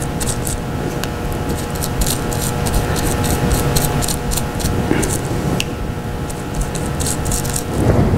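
Paintbrush scrubbing and dabbing acrylic paint into bubble wrap: quick, irregular scratchy strokes of the bristles, over a steady low hum.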